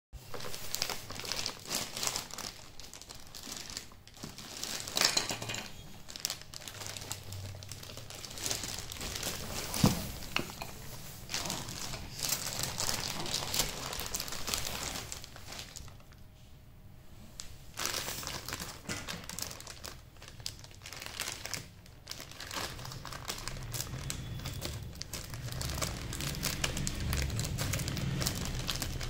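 Polythene courier mailer bag crinkling and rustling as it is handled and turned over, irregular throughout with a quieter stretch about two-thirds of the way in. A single sharp click stands out about a third of the way in.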